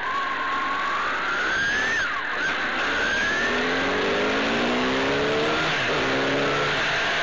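Honda CBR600F's inline-four engine accelerating under way, revs climbing and dropping at gear changes about two seconds in and again near six seconds, over a steady rush of wind and road noise.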